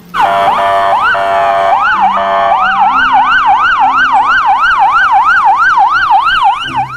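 Police car sirens sounding together, loud: several overlapping rising-and-falling wails at first, then a fast yelp sweeping up and down about three times a second from a little before the halfway point.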